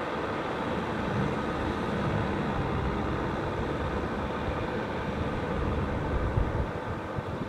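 Kubota M6040 tractor's diesel engine running steadily under load while its rear rotary tiller churns through dry soil.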